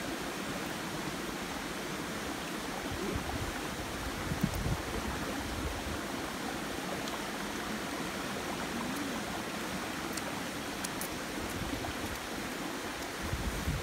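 Steady rushing of a stream running over rocks, with a brief low thump about four and a half seconds in.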